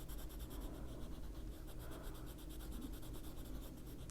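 Prismacolor colored pencil scratching on paper in quick, even back-and-forth shading strokes as light blue is laid down.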